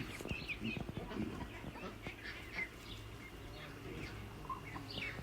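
Faint bird chirps: many short, high calls repeated at irregular intervals, with a few low knocks in the first second or so.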